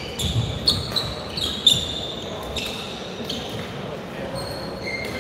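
Badminton rally: a few sharp racket hits on the shuttlecock in the first two seconds, with court shoes squeaking on the floor.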